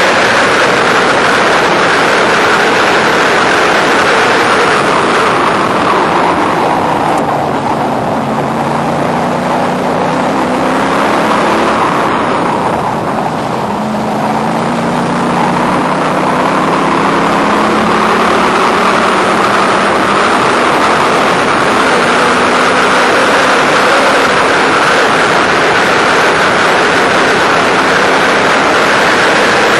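Onboard sound of a Factory Five race car at speed: loud, steady wind and road rush with the engine running underneath. Through the middle the engine note rises twice in a row, pulling up through a gear change, with a brief easing between.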